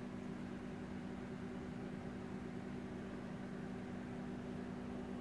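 Desktop computer's cooling fans running with a steady hum.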